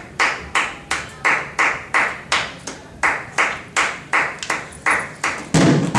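One person's slow, steady hand clapping, about three claps a second. A deeper, louder thump comes in near the end.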